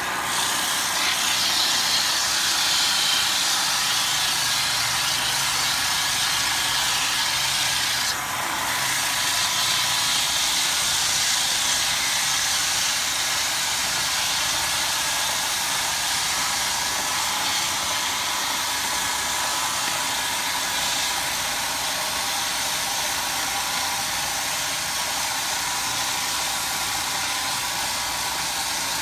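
A homemade wood lathe's electric motor running steadily, a whine of several tones over a hiss, with a brief dip about eight seconds in.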